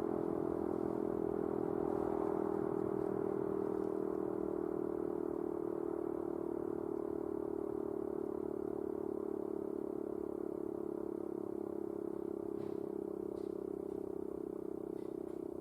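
Sentry 5V outdoor warning siren sounding a steady, unwavering tone during its Alert test signal, slowly easing a little lower in level.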